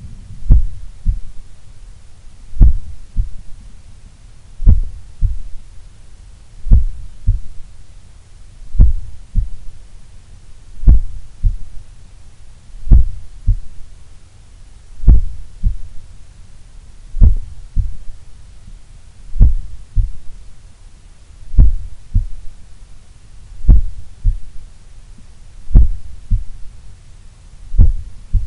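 A human heart heard through a stethoscope chestpiece on the chest: a slow lub-dub, a loud low beat followed about half a second later by a softer one, repeating about every two seconds. This is a very slow resting heart rate.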